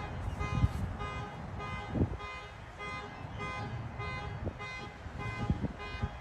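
Car alarm siren sounding a fast, evenly repeated beeping tone, about three beeps a second at a steady pitch, with a few low thumps.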